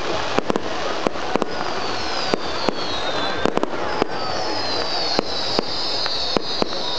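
Fireworks display: a rapid, irregular run of sharp bangs and cracks, several a second. From about a second and a half in, several high whistles from whistling shells overlap, each falling slowly in pitch.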